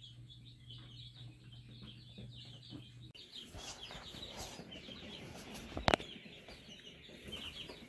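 Brooder chicks cheeping with many short, high peeps, with one sharp knock about six seconds in.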